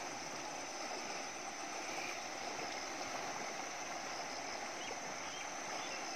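Steady rushing of fast-flowing, muddy floodwater in an overflowing river, an even constant noise.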